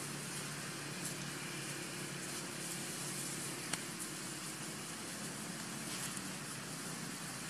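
Steady, even background hiss with no clear source, plus one short faint click about three and a half seconds in.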